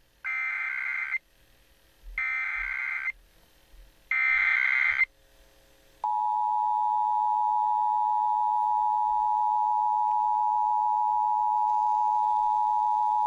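Emergency Alert System SAME header: three bursts of warbling digital data, about a second each and a second apart, followed about six seconds in by the steady two-tone EAS attention signal.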